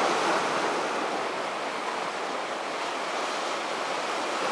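Rough sea surf washing in over shoreline boulders: a steady, even rush of breaking waves.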